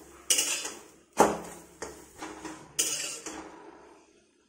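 Steel spatula scraping and clinking against a steel kadhai as a paratha is turned and lifted out, a handful of sharp scrapes with the loudest about a second in.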